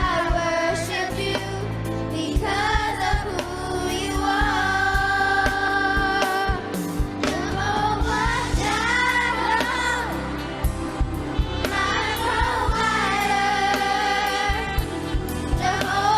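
Gospel worship song: a voice singing long, gliding held notes without clear words over backing music with a steady drum beat.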